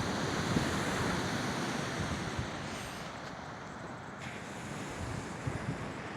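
Steady rush of wind and waves, with gusts of wind buffeting the microphone.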